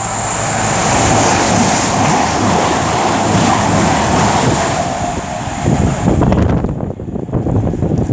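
Two coupled Class 220 Voyager diesel multiple units passing through at speed, a loud sustained rush of running noise with a steady tone in it. It drops away sharply about six and a half seconds in, leaving wind buffeting the microphone.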